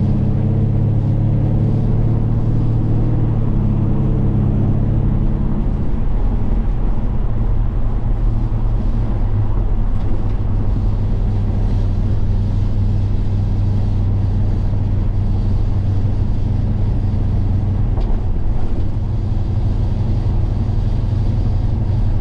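Ford Gen 3 Coyote 5.0 L V8 in a 1955 F100 pickup, running while the truck is driven, heard as a steady low drone with road noise. The engine note shifts about five seconds in, then holds steady.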